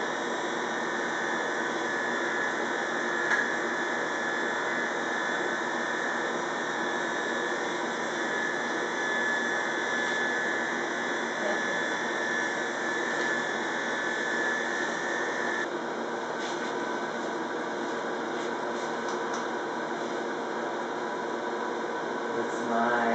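Corded electric hair clippers running steadily while cutting the short undershaved nape of a bob. A high tone in the buzz drops out about two-thirds of the way through, leaving a slightly quieter, steady hum.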